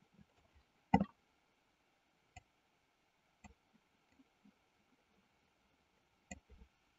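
A few isolated sharp clicks from computer input at the desk: a loud one about a second in, fainter single clicks a little later, and a small cluster near the end, over faint room tone.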